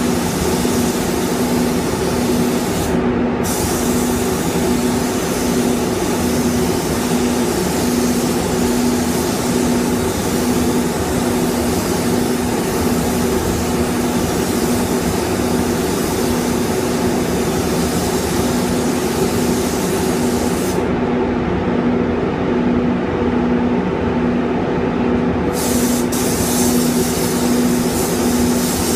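Gravity-feed paint spray gun hissing with compressed air as a car panel is sprayed, over the steady hum of the spray booth's fans. The hiss stops briefly about three seconds in and for about four seconds near the end, when the trigger is let go.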